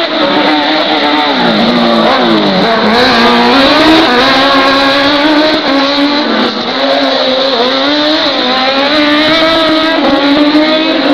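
Open-wheel race car engine revving hard, its pitch falling and climbing again as the car brakes and accelerates. There is a deep drop about two seconds in and a shorter dip about six and a half seconds in.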